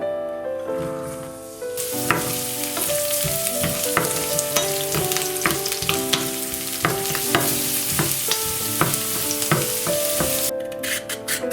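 Food sizzling as it fries in hot oil in a pan, with short clicks of stirring; the sizzle starts about two seconds in and stops shortly before the end. Background music plays throughout.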